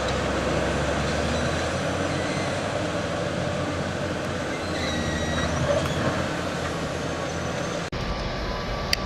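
Heavy construction machinery running steadily, with faint high metallic squeals over the engine noise. The sound breaks off abruptly about 8 seconds in and resumes at once.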